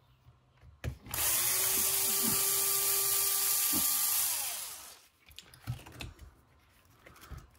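Small handheld power drill-driver running at a steady speed for about three and a half seconds, then spinning down, while taking apart a Kyosho Fazer MK2 RC car. A few light clicks and knocks of small parts follow.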